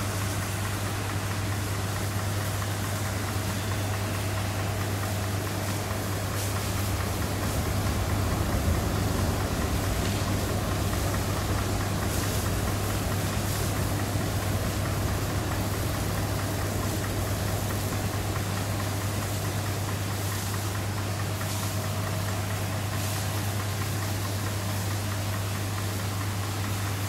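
Steady jet aircraft engine noise at an airport: a constant low hum under a wide rushing noise, swelling a little about eight to ten seconds in.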